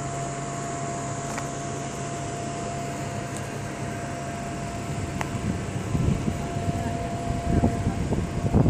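A steady machine hum with a constant whine. From about six seconds in, irregular low rumbles come and go.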